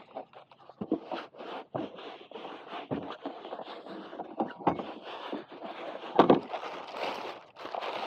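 Handling noise as pads are pressed onto velcro on an electric unicycle's shell: a rustling scrape with a handful of irregular knocks, the loudest about six seconds in.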